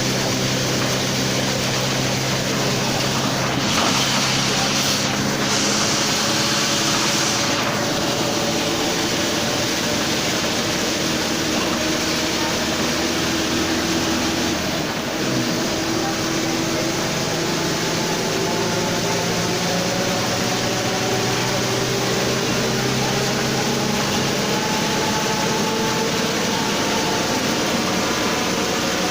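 Mercedes-Benz OF 1721 city bus's diesel engine pulling under way, with the loud growl of its cardan driveshaft. A hiss of air lasts a few seconds near the start. The engine note dips briefly about halfway, then climbs steadily as the bus gains speed.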